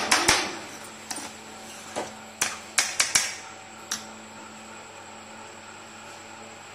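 Metal spatula knocking and scraping against a metal kadhai while stirring a thick dry vegetable mix: a quick cluster of clinks at the start, then single clinks over the next four seconds. After that only a faint steady hum is left.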